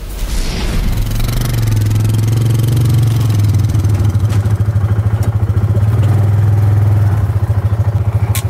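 A motor vehicle's engine running close by with a steady, rapidly pulsing low throb. It comes in at the start and swells over the first second.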